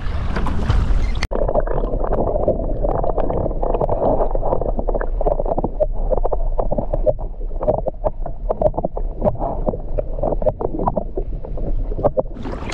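Water sloshing and gurgling around a kayak, with wind on the microphone. About a second in it turns suddenly muffled and is full of small knocks, and the clear sound comes back near the end.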